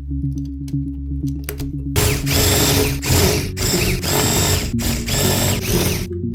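Small electric motors and plastic gears of a LEGO Technic remote-control bulldozer model running, with a loud ratcheting rattle. It starts about two seconds in and comes in several runs of about a second each, with short breaks between them.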